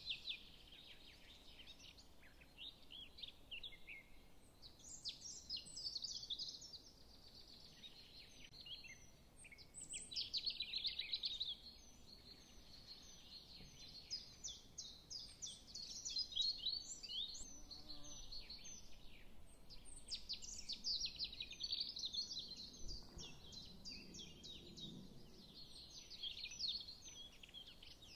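Birds chirping faintly, many short, quick calls overlapping almost without a break.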